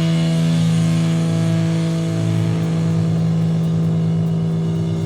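Distorted electric guitar and bass amplifiers holding a steady, loud drone as the last chord of a hardcore punk song rings out, with no drums. The drone eases off slightly near the end.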